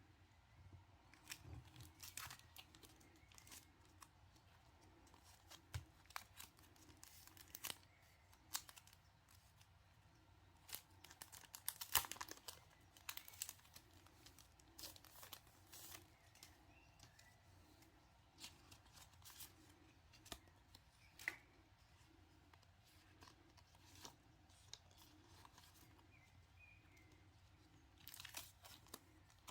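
Packaging being handled and torn open: irregular crinkling, rustling and short tearing crackles, with a louder cluster about twelve seconds in.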